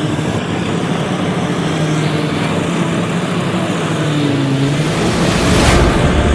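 Yanmar combine harvester's diesel engine running hard, its pitch sagging under load about four seconds in, with a deeper rumble building near the end.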